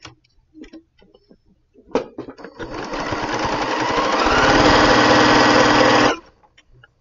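Electric sewing machine stitching a seam through pieced quilting cotton. A few light clicks come first, then the motor starts about two and a half seconds in, speeds up to a fast, steady stitching run, and stops abruptly about a second before the end.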